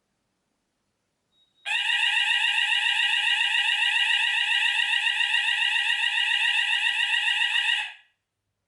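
Fire alarm sounder on a Hochiki ESP addressable system going into alarm as a detector is tested with aerosol spray. It sounds a loud, fast repeating sweep tone that starts suddenly about two seconds in, runs for about six seconds and cuts off abruptly.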